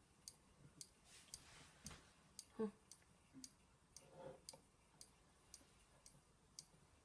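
Burglar alarm strobe flashing about twice a second: each flash a faint click, followed by a very high-pitched charging whine that rises and levels off before the next flash. A short knock about two and a half seconds in.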